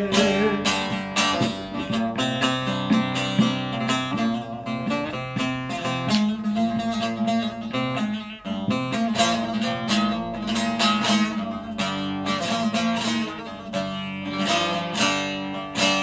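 Bağlama, the Turkish long-necked lute, played alone in quick picked and strummed runs of notes: an instrumental interlude between the sung verses of a türkü in the hicaz makam.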